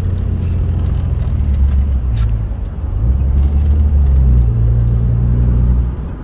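Dodge Ram 2500's Cummins inline-six turbo-diesel running under way in traffic. Its low engine note dips about two and a half seconds in, then picks up again as the truck accelerates.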